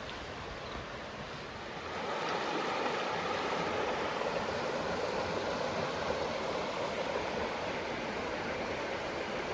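Mountain stream flowing: a steady rush of water that grows louder about two seconds in and then holds.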